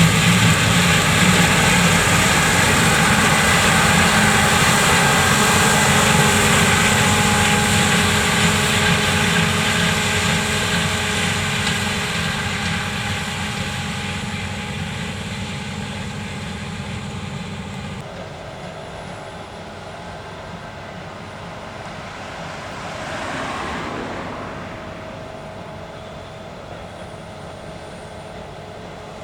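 Combine harvester engine and threshing machinery running steadily, loud at first and fading away as it moves off; the sound changes abruptly about 18 s in, with a brief swell of passing machinery around 23 to 24 s.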